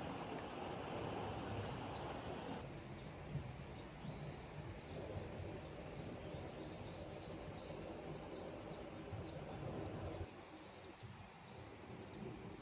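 Wild birds chirping and calling again and again over a steady rushing background noise. The background changes abruptly and drops about two and a half seconds in, and the bird calls grow busier after that.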